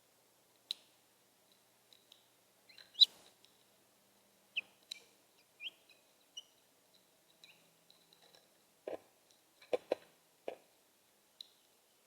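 Small birds giving a few short, thin chirps, mixed with scattered sharp clicks and a handful of dull knocks in the second half.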